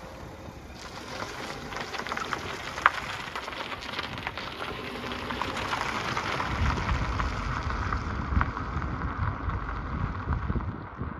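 A car moving off just after its engine was started: a steady crackling hiss from the tyres, with a low engine and road rumble that comes in about six seconds in.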